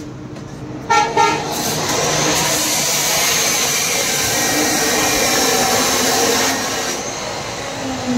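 Two short vehicle-horn toots about a second in, followed by about five seconds of loud, steady rushing noise that fades near the end.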